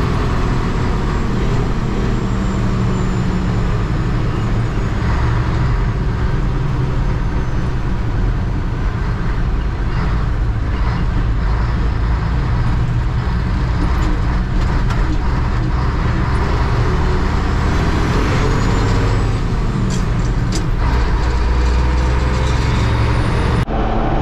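A vehicle engine and road noise while driving, steady, with a few short knocks and rattles. The sound drops out briefly near the end.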